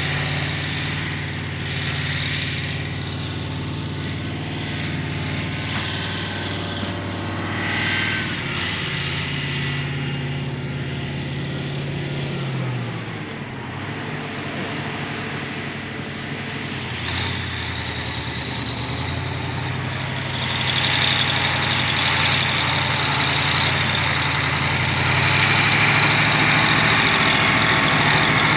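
An engine running steadily, its speed dropping about twelve seconds in and picking up again near the end.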